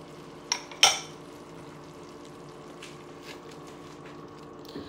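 Two sharp knocks against a nonstick wok about half a second apart near the start. Then a spatula stirs blended raw vegetables in the wok over a faint frying sizzle, with a steady low hum beneath.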